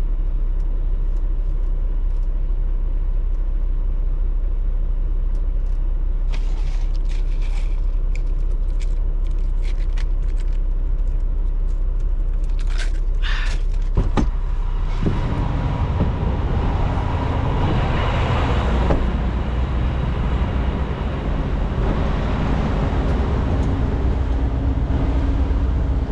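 Semi truck's diesel engine running at idle with scattered light clicks. A sharp knock comes about fourteen seconds in, and then the engine runs louder and heavier for the rest.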